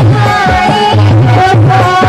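Loud dance music played over loudspeakers, with a heavy repeating bass beat under a melody line.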